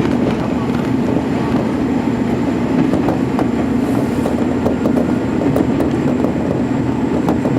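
KiHa 47 diesel railcar running steadily, engine drone and rolling noise with light wheel and track ticks, working uphill on the loop line.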